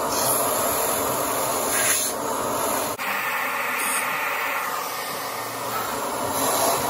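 Shop vacuum running hard with a steady hiss, its hose nozzle held at a CNC mill's end mill to suck up foam chips as the cutter mills a foam casting pattern.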